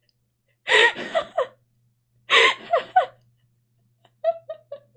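A girl gasping and laughing: two breathy voiced gasps, then a quick run of four short chuckles near the end.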